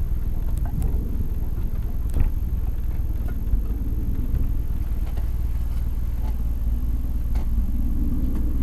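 Exhaust of a Honda City Turbo I's turbocharged 1.2-litre four-cylinder, recorded at the rear of the car, running steadily as a low rumble with no revving.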